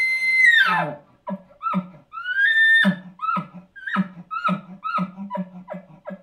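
Imitation bull elk bugle blown through a bugle tube. A high whistle is held, then breaks downward just under a second in, followed by a string of guttural chuckles at about two a second. A second short high note comes about two and a half seconds in.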